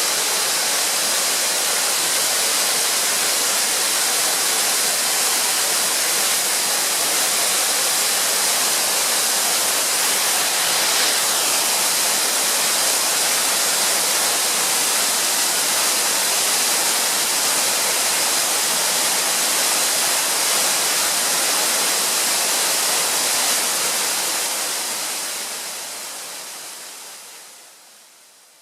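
A 50 m three-tiered waterfall, a steady, even rush of falling water that fades out over the last few seconds.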